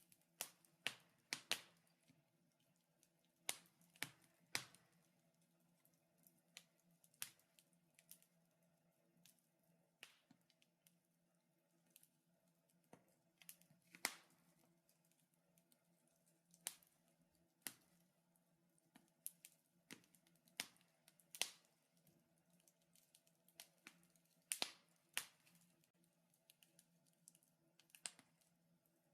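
Wood fire crackling in a fireplace: sharp, irregular pops and snaps, sometimes a few in quick succession, over a faint steady hum.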